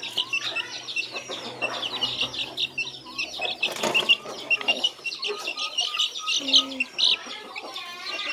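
Young black chicks peeping rapidly and continuously in short high cheeps while one is being caught by hand, with a brief scuffle about four seconds in.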